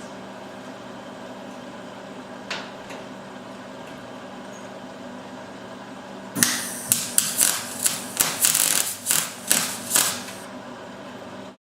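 Steady hum, then a quick run of about a dozen sharp, irregular hammer strikes on steel, likely working stock in a texturing spring die. It starts about six seconds in and lasts about four seconds, and the sound cuts off abruptly just before the end.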